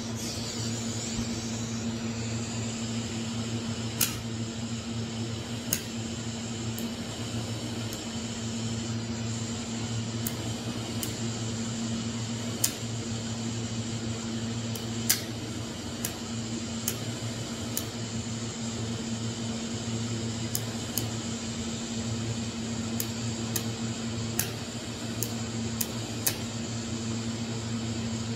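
AC TIG welding arc on aluminum: a steady electrical buzz with sharp ticks scattered through it. The arc runs on scratch start because the welder's high-frequency start is not working.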